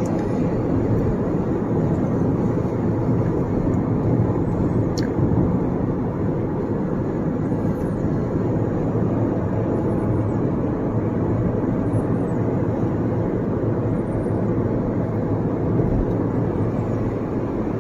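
Steady road and tyre noise with engine hum, heard from inside a car's cabin at highway speed.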